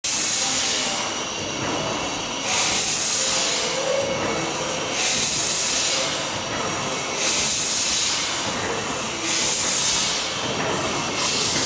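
Horizontal stationary steam engine with a large flywheel, driven by compressed air, running slowly: a regular hiss of exhausting air comes about every two seconds over a steady mechanical clatter.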